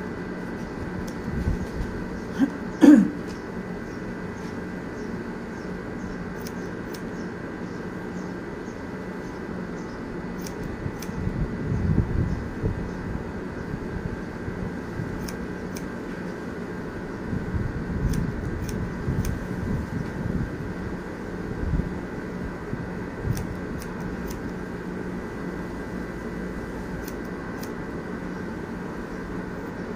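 Barber's scissors snipping hair in short, irregular clicks over a steady mechanical hum, with a brief louder sound about three seconds in.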